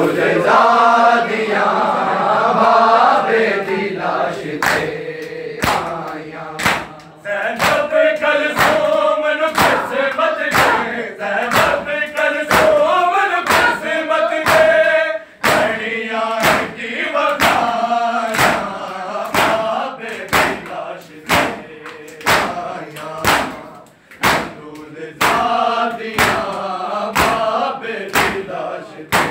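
A group of men chanting a noha lament together while beating their chests in matam; the open-hand strikes on bare chests land as a steady, even beat under the singing.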